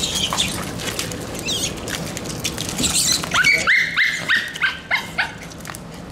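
A rat squealing as a terrier catches it: a run of about eight short, high squeals that fall in pitch, a little past halfway. Before the squeals there is scuffling and scrabbling on pavement.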